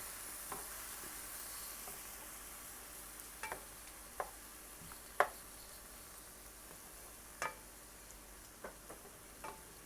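Raw shrimp frying with garlic and onion in a skillet: a soft, steady sizzle that slowly dies down, with a stirring utensil knocking against the pan several times, loudest about five seconds in.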